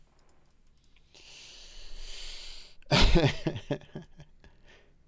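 A man's long breath, then a short burst of laughter about three seconds in: a few quick pulses lasting under a second.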